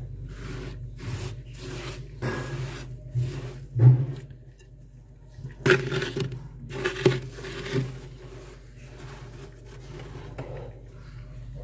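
Fingers scraping and scooping soft, powdery freezer frost, a series of irregular crunchy rasping strokes.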